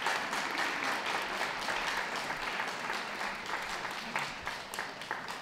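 Audience applauding, many hands clapping together, easing off a little near the end.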